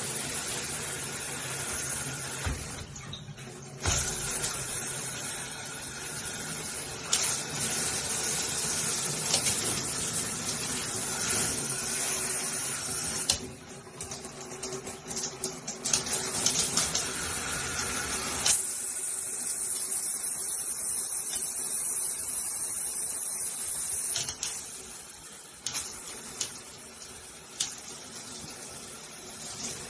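Handheld shower head spraying water, a steady hiss whose character changes abruptly several times (near 4, 13, 18 and 24 seconds in) as it is switched between its spray patterns.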